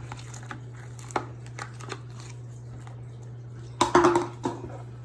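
Tabletop handling noise: scattered small clicks and taps, with a louder burst of clatter about four seconds in, over a steady low hum.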